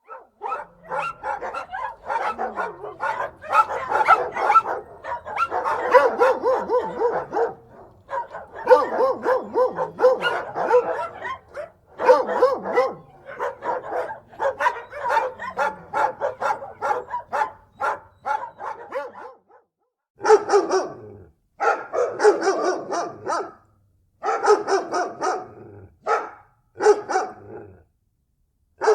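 Dogs barking angrily in rapid, continuous volleys. About twenty seconds in there is a short break, and barking resumes in shorter bursts with silent gaps between them.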